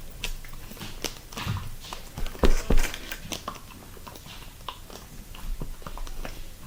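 Sticky slime being squished and pulled apart by hand, an irregular run of wet clicks and squelches, loudest about two and a half seconds in.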